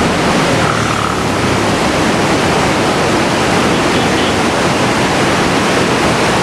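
Loud, steady rush of floodwater pouring through the open gates of the Koshi Barrage on the swollen Saptakoshi river.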